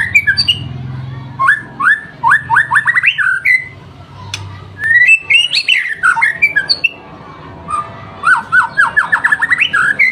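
White-rumped shama (murai batu) singing loudly: rapid runs of whistled notes, each falling in pitch, repeated in phrases with short pauses between, mixed with sharp clicking calls.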